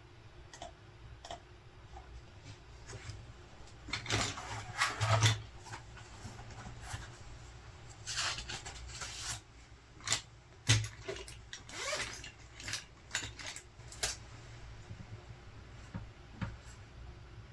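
Objects being handled at close range: bouts of rubbing and scraping mixed with light knocks and taps, in irregular clusters, with a sharp knock about eleven seconds in.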